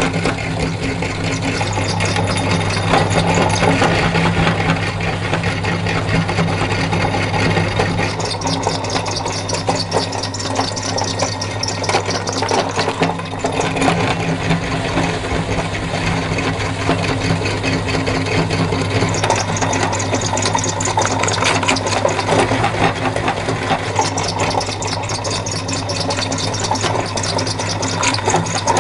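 Electric meat grinder's motor humming steadily while it crushes cookies, with continuous crunching and rattling throughout.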